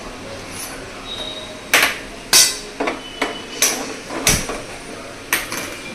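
Handheld spark gas lighter clicking repeatedly at a gas stove burner to light it: seven or eight sharp clicks, irregularly spaced, starting about two seconds in. One of them comes with a deeper thump.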